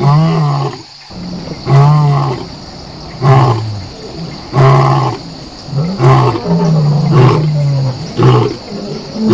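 Lion roaring in a series of about seven short roars, one every second and a half or so.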